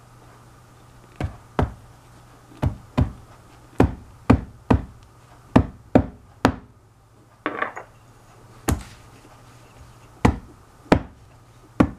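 A ceramic ramekin and a glass jar of mousse tapped down again and again on a towel-covered tile counter: a series of sharp knocks, often in quick pairs, at uneven gaps.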